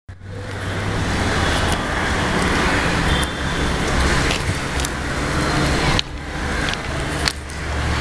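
Steady low rumble and roar of heavy engine and traffic noise, with a few sharp clicks and knocks scattered through it.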